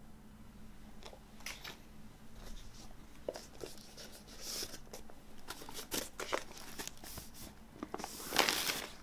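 Paper inner sleeve of a vinyl LP rustling and crinkling as it is handled, with scattered small clicks and taps. Near the end comes a longer, louder rush as the record slides out of the paper sleeve.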